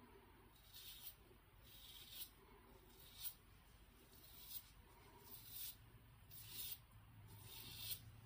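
Merkur Progress adjustable double-edge safety razor scraping through lathered stubble on the neck: faint, short scratchy strokes about once a second, the blade cutting whiskers.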